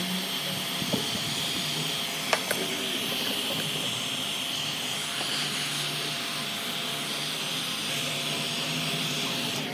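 Steady blowing hiss of a small motorised air tool, with a couple of light clicks along the way.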